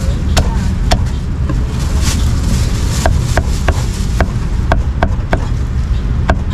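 Cleaver chopping braised meat on a thick round wooden chopping block. A few scattered knocks come first, then steady chops at about three a second from about three seconds in, over a steady low background rumble.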